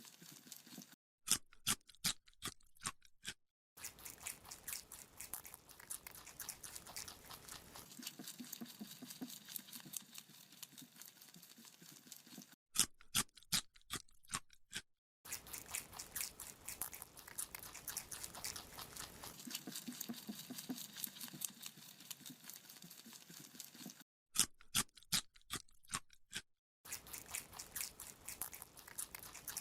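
Rabbit chewing a carrot: steady rapid crunching, with three runs of louder, sharper crunches, each set off by short sudden gaps of silence.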